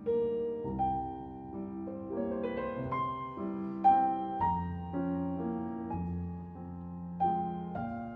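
Piano music: soft notes and chords played at an unhurried pace.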